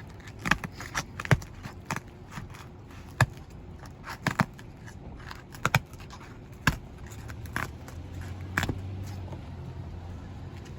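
Roof snake worked under roof shingles to break their sealant strip, giving a run of sharp, irregular cracks and scraping clicks as the seal lets go.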